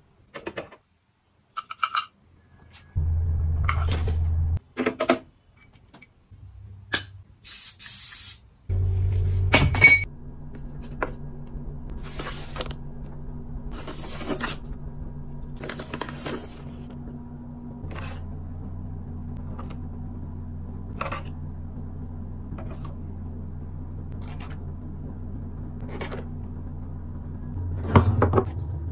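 Cosmetics and packets being handled and put into plastic storage organisers and drawers: scattered light taps, clicks and rustles, with a short hiss about eight seconds in. A steady low hum runs underneath for the second half.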